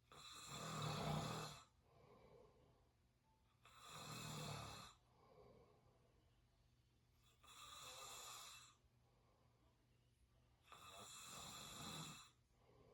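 A sleeping person snoring through the open mouth: four long snores at an even pace, one about every three and a half seconds, with a softer breath between each.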